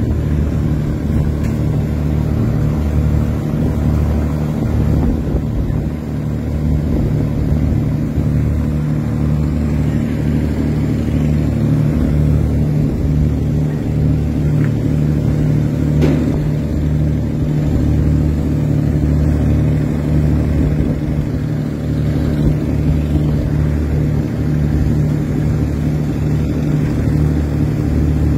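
River car ferries' diesel engines droning steadily underway, a deep even hum with no change in speed.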